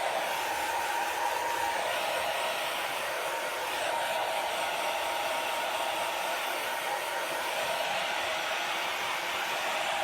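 Hair dryer blowing steadily, an even rush of air with a faint whine from its motor.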